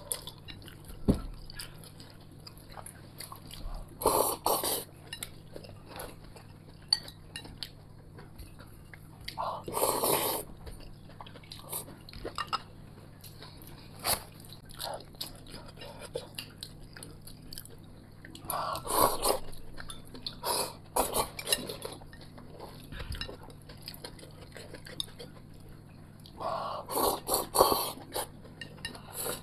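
Eating at the table: chopsticks clicking against porcelain bowls and plates, with close-up chewing of stir-fried potato strips and rice. Louder clusters of short eating noises come about five times.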